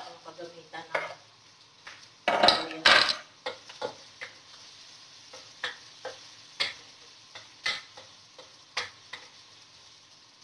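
Wooden spatula stirring food in a stainless steel wok over a gas flame, knocking against the metal about once a second, with a loud clatter about two and a half seconds in. Faint sizzling of the frying food lies underneath.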